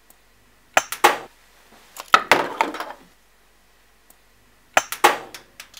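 Levitation spinning top, a metal disc magnet on a stem, being twisted and spun on a clear plastic plate, clattering and knocking against it in three short bursts of clicks.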